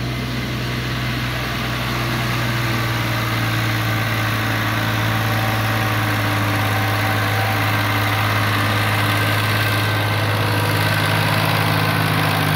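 Sonalika DI-45 RX diesel tractor engine running steadily under load as it pulls a trolley of soil across loose, dug ground, getting a little louder as it comes closer.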